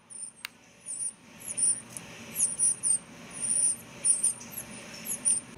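Northern cardinal nestlings begging for food: a rapid run of short, high-pitched chirps and squeaks.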